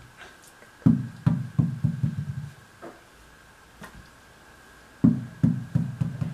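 A tennis ball bouncing on a hardwood floor, with two runs of bounces that come quicker and quicker as they die away: one about a second in, the other about five seconds in.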